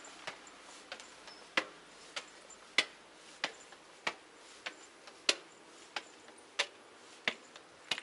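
Footsteps of shoes on concrete stairs as someone climbs: sharp, even steps about one and a half a second, some louder than others.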